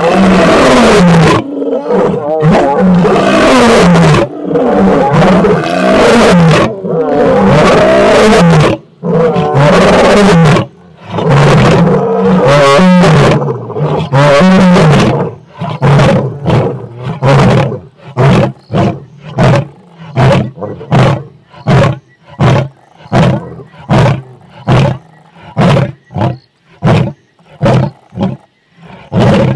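Male lion roaring: several long, loud roars in the first half, then a long run of short grunts, about two a second, that fade near the end, the usual close of a lion's roaring bout.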